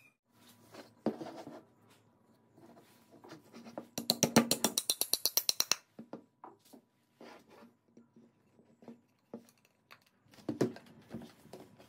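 Wooden stock pieces handled and knocked on a bench while a dowel is fitted to join them, with scattered knocks. About four seconds in, a rapid rattle of sharp clicks, roughly ten a second, runs for just under two seconds and is the loudest sound.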